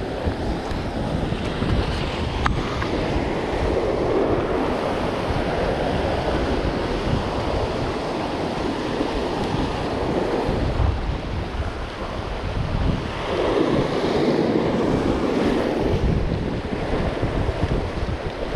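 Surf breaking and washing over a rock platform, surging twice, about four seconds in and again past halfway, with wind buffeting the microphone.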